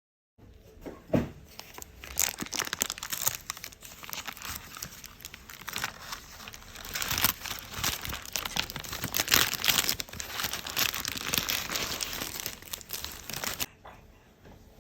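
Stiff paper being handled, crinkling and tearing in a dense run of crackles that stops suddenly near the end.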